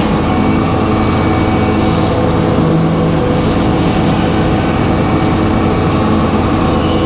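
Circular sawmill running steadily, its power unit and spinning blade making a constant low drone.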